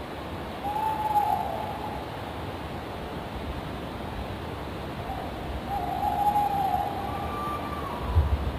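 Tawny owl hooting: a short hoot about a second in, then a longer hoot around six seconds in with a brief higher note after it, over steady background noise.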